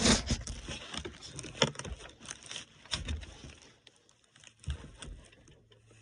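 Irregular metal clicks and knocks from the front drive shaft of a John Deere 310K backhoe being worked loose by hand at its U-joint yoke, busiest in the first couple of seconds and sparser later.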